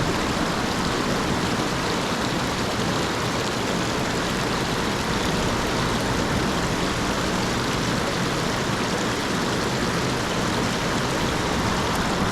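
Flowing stream water rushing steadily, an even, unbroken hiss.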